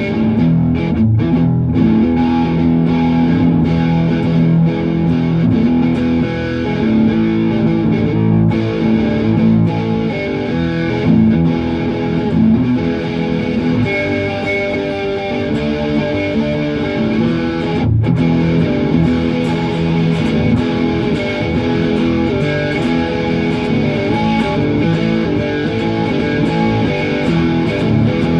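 Electric guitar playing an instrumental tune, its notes and chords held and ringing on.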